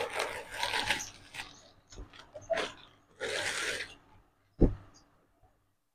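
A plastic carry bag and clothes rustling and crinkling as they are handled, in two spells, with a few light clicks and a single soft thump near the end.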